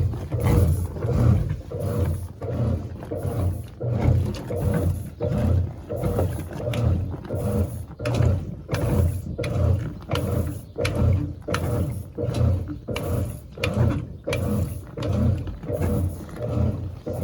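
GE Imagination 10 kg washing machine (LVGE1020) running, giving a low mechanical groan that swells and fades about one and a half times a second.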